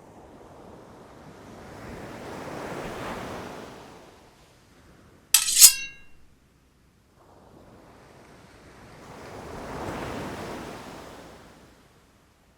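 Ocean waves washing in twice, each swell rising and falling over about four seconds. Between them comes a single bright clink with a short ringing tail, the loudest sound.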